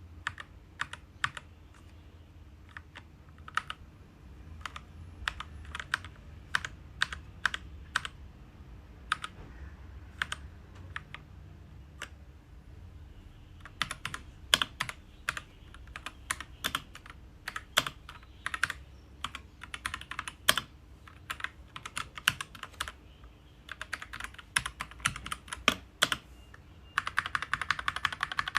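SHAVALIFE K87 mechanical keyboard being typed on: single key presses and short runs of clicks, with a fast burst of typing near the end.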